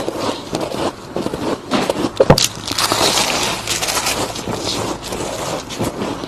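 Close-miked biting and chewing of soft frost ice: a dense run of crunches and crackles, with one sharp, loud crunch about two seconds in.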